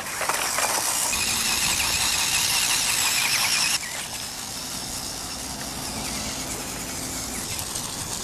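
Small electric RC rock crawler's motor and gears whining as it drives over grass. The sound changes abruptly about four seconds in, to a quieter, steadier whine.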